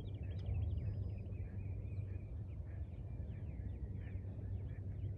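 Birds chirping in quick, short calls, many overlapping, over a steady low hum.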